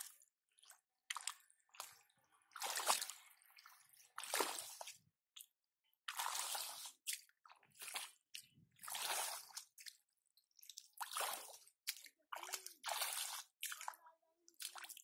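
Hands squelching and splashing as they grope through mud and shallow muddy water, with drips of water. It comes in short, irregular wet bursts with silent gaps between.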